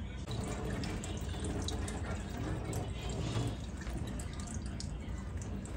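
Running water, as from a tap.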